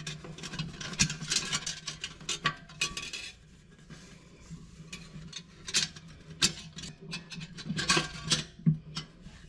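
A thin steel snap ring being worked by hand into its groove in a 200-4R automatic transmission case, above the steel and clutch plates: irregular metallic clicks, clinks and light scraping, with a quieter stretch in the middle.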